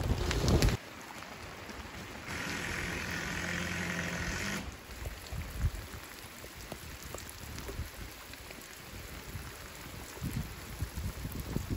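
Steady rain falling on a plastic tarp and around the site. A loud low rumble at the start cuts off under a second in. From about two to four and a half seconds in there is a louder hiss with a faint low hum, then quieter steady rain with scattered drips.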